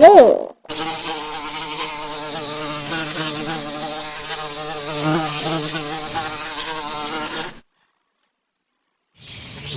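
Bee buzzing: a steady, wavering insect hum lasting about seven seconds, then cutting off suddenly. A short, loud gliding tone comes just before it, and the buzzing starts again near the end.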